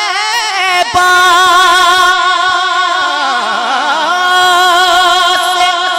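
Male naat reciter singing unaccompanied into a handheld microphone, holding long notes with a wavering vibrato. About midway the melody dips lower and comes back up.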